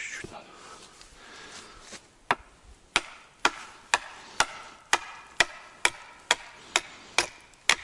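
A brick knocking on the back of an axe head to drive the blade into a wooden post: about a dozen sharp knocks, roughly two a second, starting a couple of seconds in.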